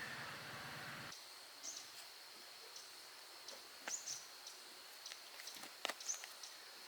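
Faint outdoor ambience: a steady high-pitched whine with scattered short chirps and a few light clicks. A louder noisy background cuts off about a second in.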